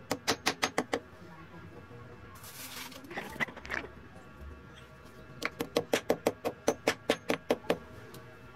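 Hammer tapping a plastic wall plug into a drilled hole in a concrete wall, about six light blows a second. There is a quick run of about seven blows, a pause with some scraping and handling noise, then a longer run of about fifteen blows.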